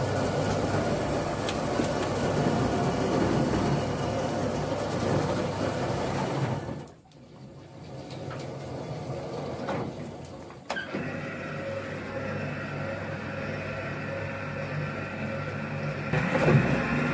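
Borewell drilling rig machinery running with a steady mechanical hum. The sound drops away abruptly about seven seconds in, then returns changed, with a sudden jump near eleven seconds.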